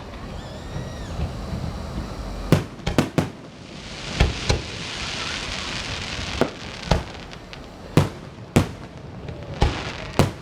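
Aerial fireworks going off: about a dozen sharp bangs at irregular intervals, with a stretch of hissing crackle about four to seven seconds in.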